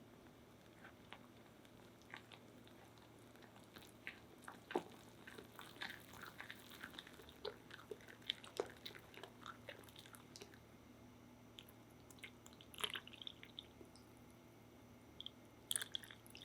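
Faint, irregular clicks and soft wet taps of kitchen utensils working crepe batter in a bowl, busiest in the middle, with a short flurry near the end.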